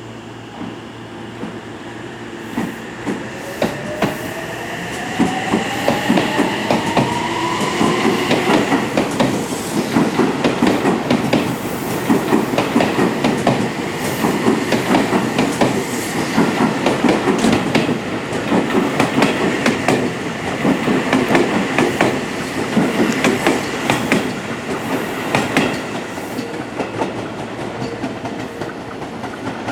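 Seibu 6000-series electric train accelerating away from a station: the motor whine rises in pitch over the first several seconds, then wheels clatter quickly and rhythmically over rail joints above a steady rumble as the train gathers speed, easing a little near the end.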